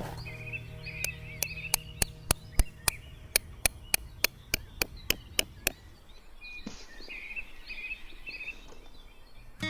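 A quick run of about seventeen sharp knocks, three to four a second, starting about a second in and stopping just before six seconds. Small birds chirp before and after the knocking.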